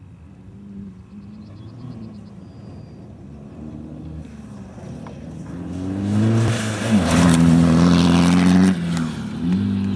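VW Golf II rally car's 1.9 TDI four-cylinder turbodiesel accelerating hard along a loose dirt stage and passing close by. The engine note rises through the revs and swells from about four seconds in, with noise from the tyres on the loose surface. It drops briefly about nine seconds in, then climbs again.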